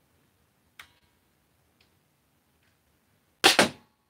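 Caliburn spring-powered foam dart blaster firing about three and a half seconds in: a loud, sharp double crack. A faint click comes about a second in.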